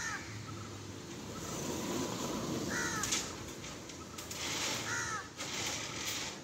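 A crow cawing three times, about two and a half seconds apart, over the scraping and rattling of long steel reinforcing bars being dragged off a pickup truck's load.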